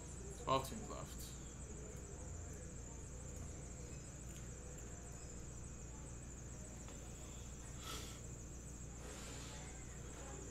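Quiet room tone with a steady high-pitched whine, and a brief vocal sound about half a second in.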